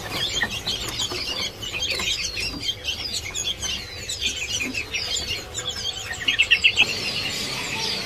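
Many caged songbirds chirping and calling over one another in short, overlapping notes, with a quick run of loud repeated notes about six seconds in.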